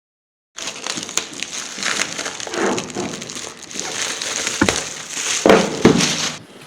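Plastic shrink-wrap being peeled and crumpled off a product box: a continuous crinkling starting about half a second in, with a few knocks of the box a little past the middle.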